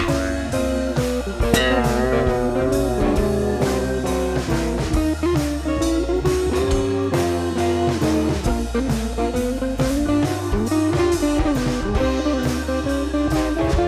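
Background music: an electric guitar playing a wavering, bending melody over a steady drum beat and bass, cutting off at the end.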